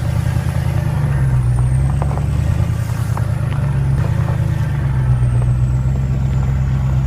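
Ford Powerstroke diesel pickup engine running steadily, a deep even drone with a faint high whine over it.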